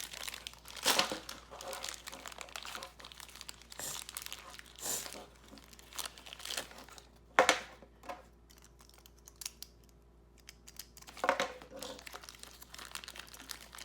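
Plastic wrappers on Beyblade parts crinkling and tearing as they are unpacked by hand, in irregular rustles with a few louder sharp bursts. There is a quieter stretch a little past the middle.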